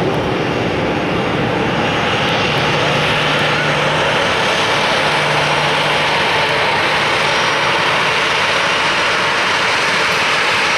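Jet airliner engines: a loud, steady rush of noise that grows a little stronger about two seconds in.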